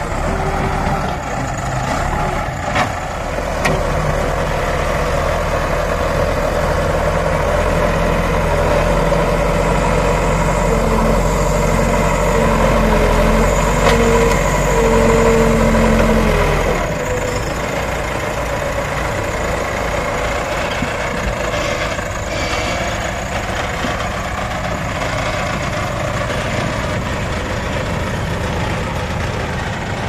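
JCB 3DX backhoe loader's diesel engine working under load as the front bucket is driven into a soil heap, louder at higher revs, then dropping to a lower, steady running level a little past halfway as the machine pulls away with the loaded bucket.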